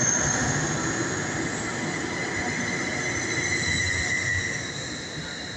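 Greater Anglia passenger train pulling out past the platform, with steady high-pitched squealing tones over its running noise, fading as it draws away.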